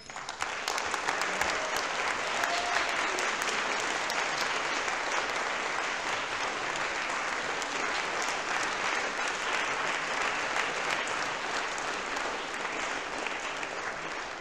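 Audience applauding: many people clapping steadily, starting abruptly.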